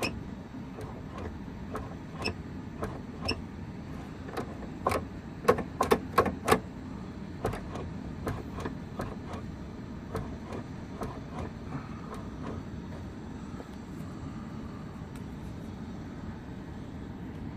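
Scattered clicks and knocks from hand work on the rear hatch latch mechanism of an 80-series Land Cruiser (Lexus LX450), with a quick run of sharper, louder clicks about five to six and a half seconds in, over a steady low background hum.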